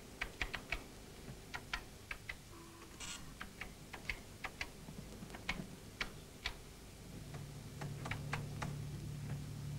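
Keys clicking irregularly on a computer keyboard as spoken words are typed up into a transcript. A low steady hum comes in about seven seconds in.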